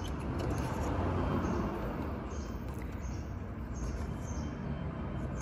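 A hand rubbing and fumbling against plastic parts behind a car headlight, giving continuous rustling and scraping with a few faint high squeaks.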